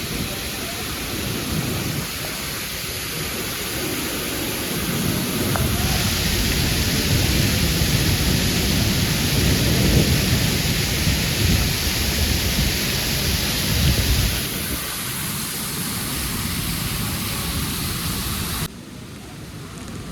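Heavy rain pouring down, a steady hiss with a low rumble underneath. It is loudest in the middle stretch, then drops off abruptly near the end.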